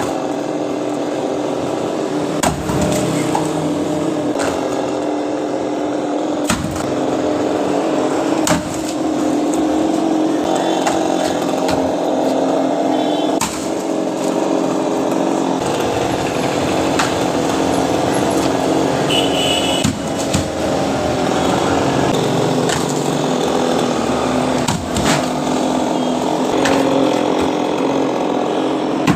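Chainsaw running steadily while cutting a coconut palm trunk, with a few sharp knocks along the way.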